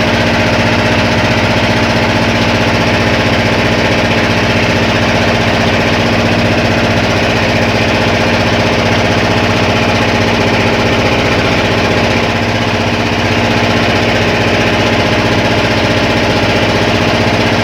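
Boat engine running steadily and loudly, with a slight drop in level about twelve seconds in.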